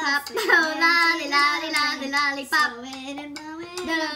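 A girl singing alone without accompaniment, holding long notes that waver in pitch.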